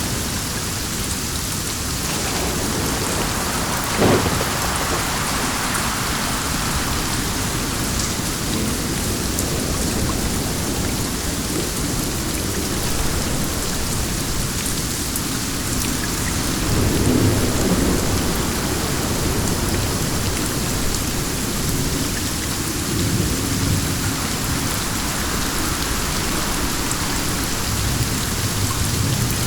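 Steady heavy rain falling with wind. A sharp crack comes about four seconds in, and low rumbles swell up in the middle and again later.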